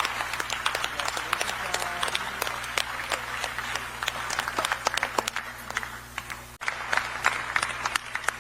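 Audience applauding, many hands clapping steadily; the sound drops out for an instant about six and a half seconds in, then the applause goes on.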